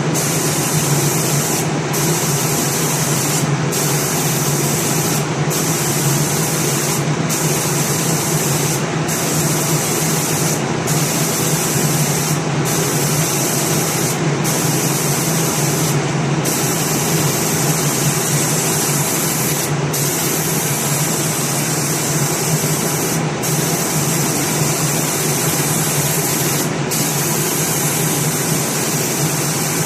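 Automatic spray painting machine running: a steady spray-gun hiss over a low machine hum. The hiss drops out for a moment every two seconds or so, later every three to four seconds.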